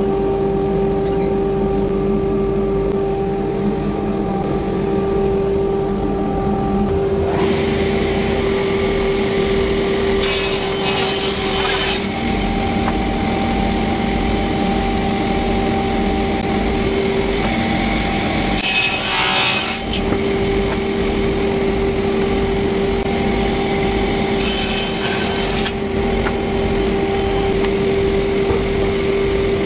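Sliding table panel saw running with a steady whine, cutting through pine boards three times; each cut is a harsh rasping burst of a second or two.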